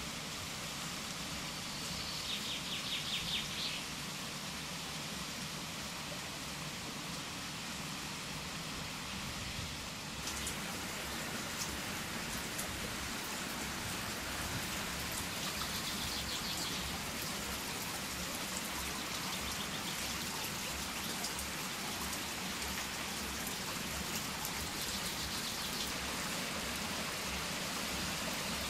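Water pouring and splashing from an overshot waterwheel's buckets, a steady rushing that gets a little louder about ten seconds in. A small bird trills briefly three times over it.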